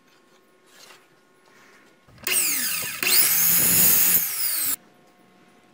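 Electric miter saw running, its motor and blade whining as the pitch climbs and falls again, for about two and a half seconds from about two seconds in, then stopping abruptly.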